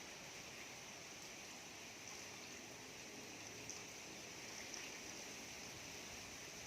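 Steady, faint hiss of falling rain, with a few light ticks of drops.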